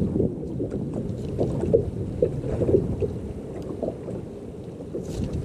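Wind buffeting the microphone on an open boat: an uneven low rumble.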